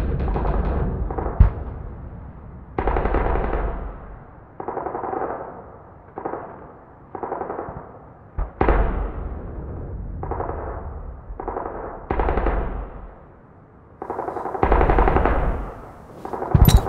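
Repeated bursts of automatic gunfire, about a dozen bursts of roughly a second each with short gaps between them, and a few single sharp shots among them.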